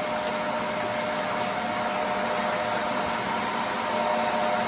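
Steady mechanical hum with a few steady tones over an even hiss, from the air blowers and water pumps that keep koi tanks running.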